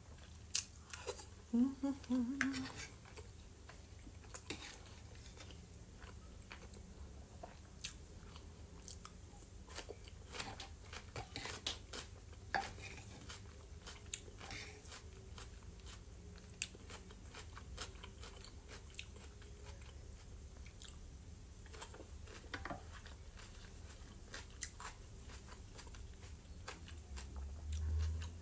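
A person chewing and eating fried potatoes and vegetable salad, with soft mouth sounds and sharp clicks scattered through. There is a brief hum about two seconds in.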